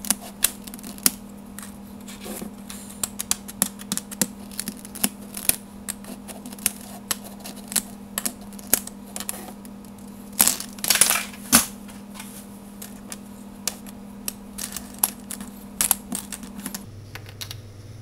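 Hard plastic Rubik's cube pieces clicking and clattering as the cube is taken apart piece by piece, with a louder burst of rattling about eleven seconds in.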